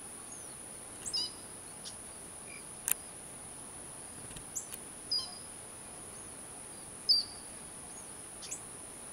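Short high-pitched bird chirps every couple of seconds, the loudest about a second, five and seven seconds in, some as quick runs of falling notes, over a steady thin high whine. A single sharp tick about three seconds in.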